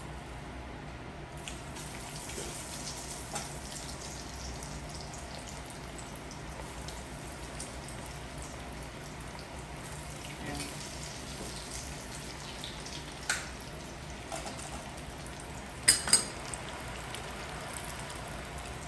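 Cornstarch-coated pork tenderloin pieces deep-frying in hot oil in their second fry: a steady sizzle that sets in about a second and a half in, with scattered crackles. A few sharp clicks of metal tongs against the stainless pot stand out, the loudest a quick double click near the end.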